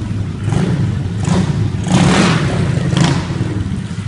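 Pit bike engine running and revved in several short blips, the loudest about two seconds in, during a burnout attempt.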